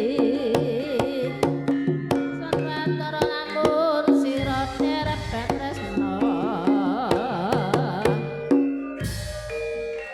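Live campursari music: a kendang hand drum beats out a busy rhythm under sustained instrumental tones, with a wavering sung or played melody line.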